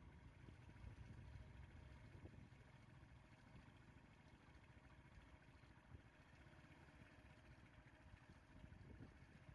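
Faint, steady low hum of a vehicle engine, with little else heard.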